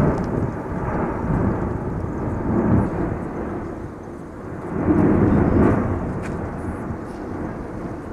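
Erupting volcanic vent fountaining lava: a continuous deep rumble of jetting gas and lava that swells in surges, loudest about five seconds in, then eases.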